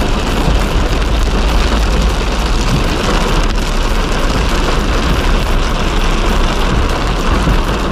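Pickup truck driving: steady, loud road and wind noise over a low rumble.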